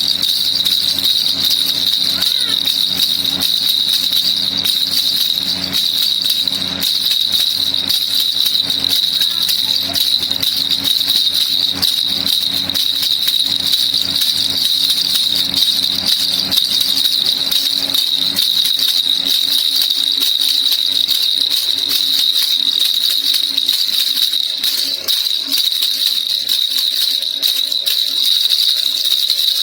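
Baby rattle (kilukiluppai) shaken fast and without a break, a dense, bright jingling rattle.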